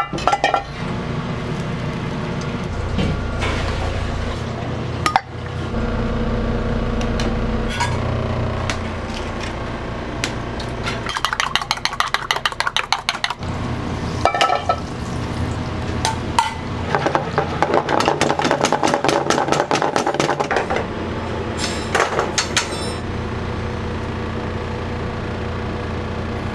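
Metal frying pan clattering on a gas range as it is shaken and tossed fast, with utensils clinking, over a steady low kitchen hum. Two spells of rapid, even clattering, about eight strokes a second, come about a third of the way in and again just past the middle, with single clanks between.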